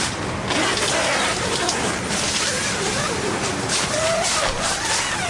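Nylon tent fabric rustling and crinkling as the walls and door panel are handled.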